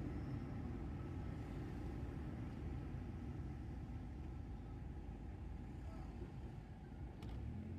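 Steady low rumble of a car's engine and tyres heard from inside the cabin while driving slowly, with a faint click near the end.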